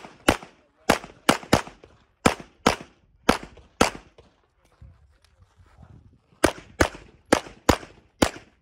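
Pistol shots fired in quick succession, mostly in pairs: about nine in the first four seconds, a pause of two to three seconds, then five more near the end.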